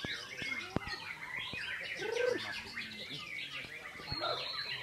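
White-rumped shamas (murai batu) singing: a dense run of overlapping quick chirps, whistles and trills. A short, lower-pitched call comes in about two seconds in, and there are a few sharp clicks.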